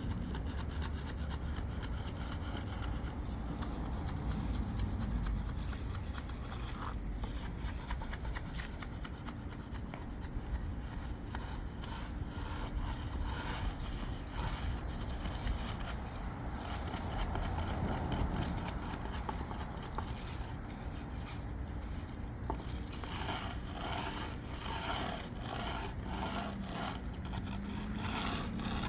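Hand finishing tools scraping and rubbing over fresh concrete in repeated strokes, with a steady low rumble underneath.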